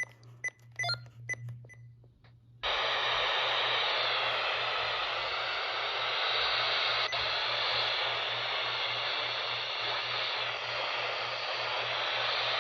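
Radio receiver static: a few faint short beeps, then a steady hiss switches on suddenly about two and a half seconds in, over a low hum. This is typical of a radio being tuned to a channel with no clear signal.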